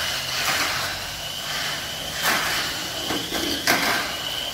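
Tamiya Sunny Shuttle mini 4WD with its stock motor running laps on a plastic track: a steady high motor-and-gear whine over the rattle of the car in the lanes, with a few sharp plastic clacks.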